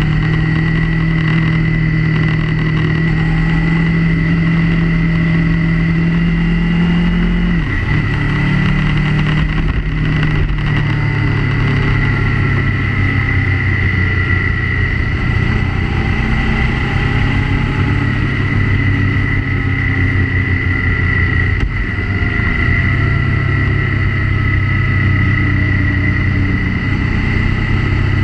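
Motorcycle engine running steadily while riding, its note dipping briefly about a third of the way in and again about three-quarters through.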